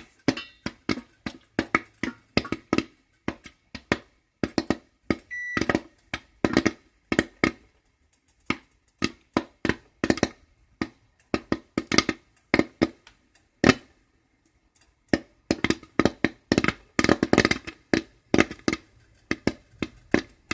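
Popcorn kernels popping in oil in a covered pot: sharp, irregular pops a few a second, bunching into quick runs, with a short lull about two-thirds of the way through. The popping is in full swing, not yet dying out.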